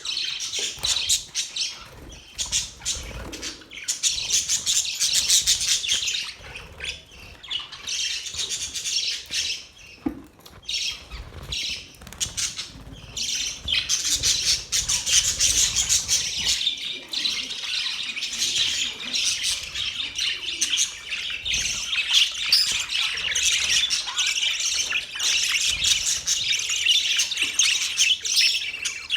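Budgerigars chattering, a dense run of rapid chirps and warbles with short squawks mixed in, thinning out briefly twice before picking up again.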